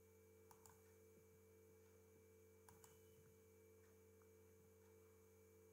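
Near silence: a faint steady electrical hum, with a few faint computer mouse clicks about half a second in and again near the three-second mark.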